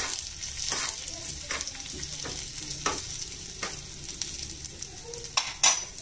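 Cumin seeds, chopped ginger and dried Byadgi chillies sizzling in hot ghee in a small pan, with a metal spoon stirring and scraping against the pan about every three-quarters of a second. A louder scrape or knock of the spoon comes near the end.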